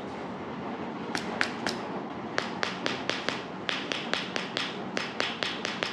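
A run of sharp taps or clicks. Three come about a second in, then after a short pause they come steadily at about four a second.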